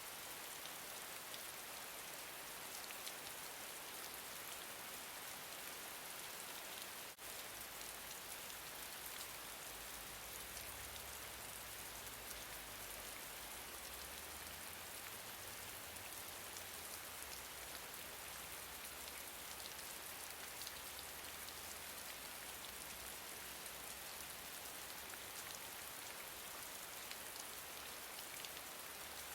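Gentle rain falling steadily, its hiss sprinkled with small ticks of individual drops. A faint low rumble comes in about seven seconds in, just after a momentary dip.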